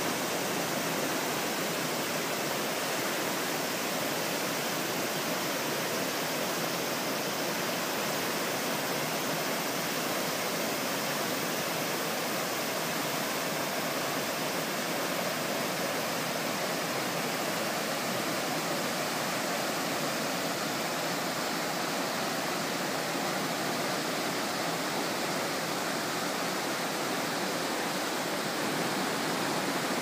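Steady rush of a mountain river's whitewater tumbling over rocks in a gorge, an even unbroken roar of water.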